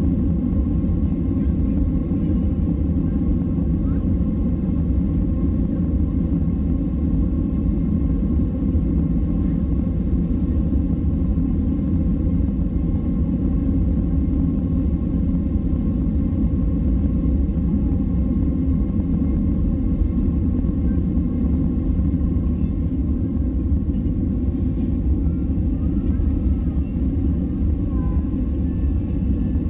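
Boeing 767-300 takeoff heard from inside the cabin: a steady, loud, deep rumble of the engines at takeoff thrust and the wheels on the runway as the airliner rolls and lifts off.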